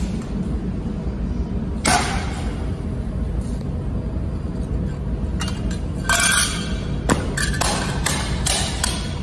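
Thin laser-welded 2 mm aluminium plate clanking and knocking against a wooden pallet and concrete floor as it is bent and stamped flat to test the weld. There is one sharp, ringing clank about two seconds in, then a run of several quick knocks near the end.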